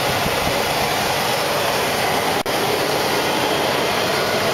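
5.7-litre Vortec V8 of a 2002 Chevrolet Express van idling, heard up close in the open engine bay as a steady running noise. The sound cuts out for an instant about halfway.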